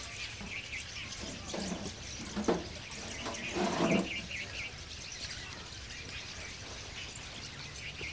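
Small birds chirping in short repeated calls, over steady outdoor background noise. A few brief low voice-like sounds come between about one and a half and four seconds in, the loudest near the fourth second.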